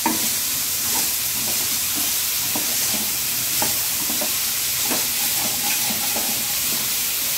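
Chopped vegetables sizzling in oil in a metal kadai, stirred with a spatula that scrapes and knocks against the pan every second or so over a steady hiss.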